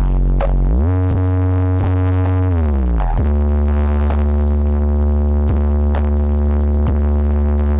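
Bass-heavy electronic dance music played loud through a sound system during a sound check. Its deep bass notes slide down and back up in the first few seconds, then hold steady, under a beat of about two hits a second.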